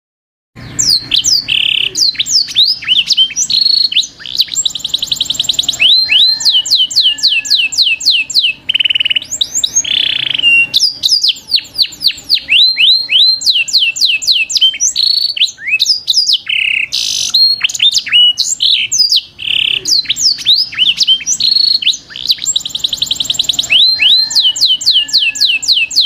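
Songbirds singing and chirping in a dense, loud chorus: rapid runs of high downward-sweeping notes, fast trills and short whistles, starting suddenly about half a second in.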